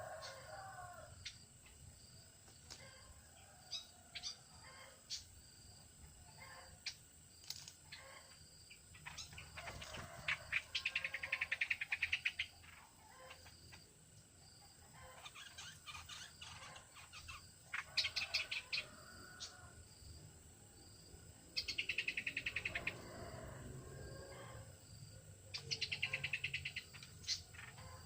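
Small birds calling: scattered short chirps and several bursts of rapid stuttering trills, each lasting a second or two.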